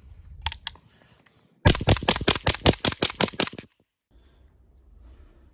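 Suppressed 9mm KP9 firing 147-grain subsonic ammunition: a fast string of about sixteen shots in two seconds, about eight a second, after a couple of light metallic clicks.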